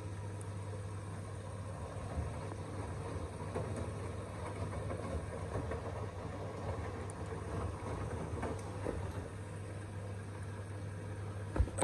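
Washing machine running its cycle: a steady motor hum under shifting drum noise, with a sharp knock near the end.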